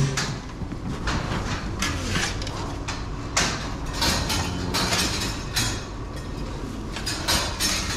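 Pitchforks scraping over the floor and tossing old hay and feed into a wheelbarrow: a run of short rustling scrapes, one or two a second, over a steady low hum.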